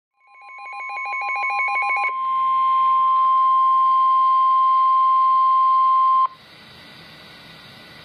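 NOAA Weather Radio 1050 Hz warning alarm tone sounding through a weather-alert radio receiver, one long steady tone that grows louder over the first few seconds, with rapid pulsing beeps over it for the first two seconds. It cuts off suddenly about six seconds in, leaving the faint hiss of the radio channel before the warning message is read.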